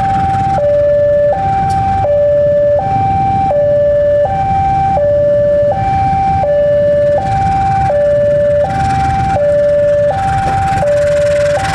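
Electronic two-tone warning alarm alternating steadily between a higher and a lower note, each held under a second, over the low rumble of a diesel locomotive.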